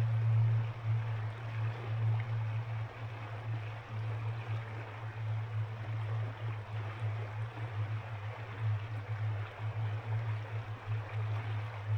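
Ice-cold mountain river flowing: steady rushing water with a strong low rumble underneath that swells and eases.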